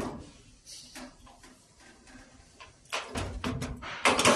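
A door being handled on the vending machine: a sharp click at the start, a few light knocks, then a run of rattling knocks near the end, the loudest just before it stops.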